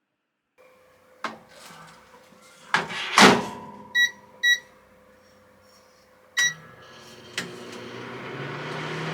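Microwave oven being closed and started: a few clicks and a loud clunk as the door shuts, two short keypad beeps, another beep as start is pressed, then a click and the oven's steady running hum, which grows louder.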